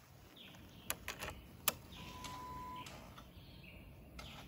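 Ignition key going into and turning in a BMW GS motorcycle's switch: several sharp clicks about a second in, then a short steady electronic beep as the instruments come on, with the engine not running. Birds call faintly in the background.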